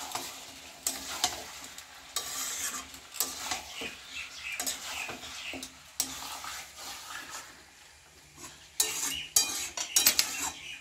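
Chicken pieces and masala being stirred and scraped in a steel kadai with a metal spatula. They sizzle as they fry, and the spatula clinks against the pan. The scraping and clinking are loudest near the end.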